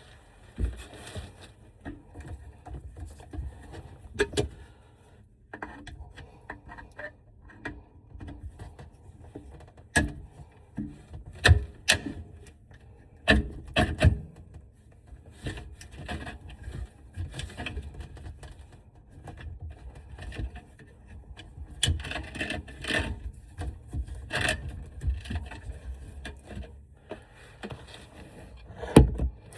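Irregular knocks, clacks and scraping, like objects being handled, moved and set down; no motor is running.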